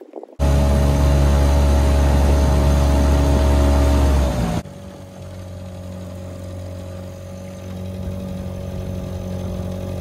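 Small outboard motor running steadily with the boat under way: a loud drone for the first few seconds that dips slightly in pitch, then, after an abrupt change, a quieter steady drone.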